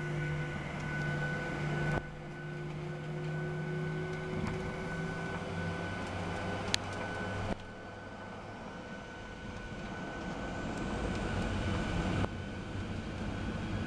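Boeing 737-700's CFM56 jet engines running steadily, heard from inside the cabin while the airliner is on the ground: a steady whine over a low hum, with abrupt steps in loudness and a single sharp click about seven seconds in.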